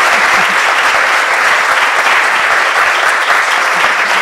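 An audience applauding: dense, steady clapping from a large crowd.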